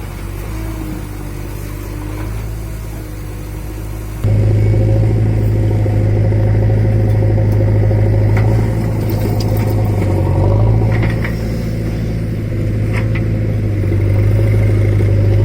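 JCB 3DX backhoe loader's diesel engine running steadily under working throttle; it gets suddenly louder about four seconds in, with a few faint clanks later on.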